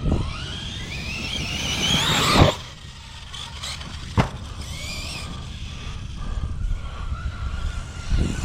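Brushless electric motor of a 6S RC basher truck whining up steeply in pitch under throttle for about two seconds. It ends in a sharp knock, and a second knock comes about two seconds later. Afterwards a fainter steady motor whine runs over a low rumble.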